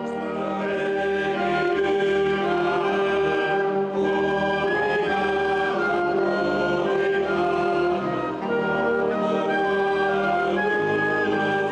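Wind band of clarinets, saxophones and brass playing a slow tune in a church, with long held notes.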